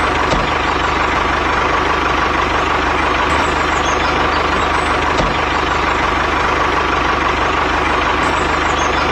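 Homemade mini tractor's small engine running steadily, with a constant whine over a fast, even firing beat.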